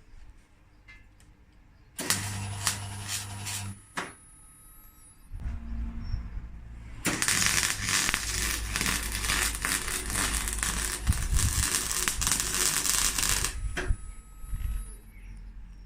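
Steel fabrication work: two bouts of loud, crackling hiss from a welder or power tool working on steel, a short one with a low hum under it about two seconds in and a longer, louder one from about seven to thirteen seconds.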